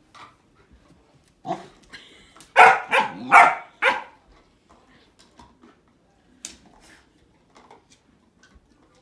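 A puppy barking at a grapefruit: one bark about a second and a half in, then four loud barks in quick succession. After the barks come only faint scattered taps.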